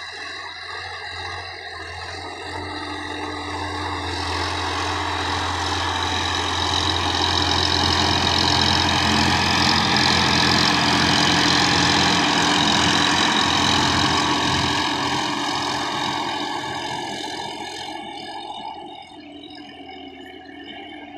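Sonalika DI-50 RX tractor's diesel engine running under load while pulling a rotary tiller through dry soil. It grows louder as the tractor passes close by around the middle, then fades as it drives away.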